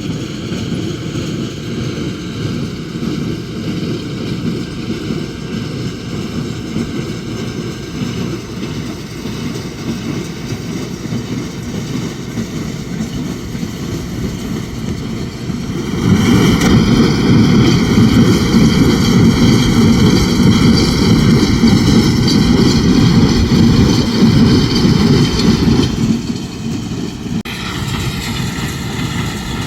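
Tractor engine running steadily while pulling a square hay baler through the field. It grows clearly louder for about ten seconds past the middle, then drops back.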